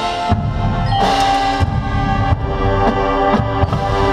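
Drum and bugle corps playing: the brass holds chords over frequent drum hits.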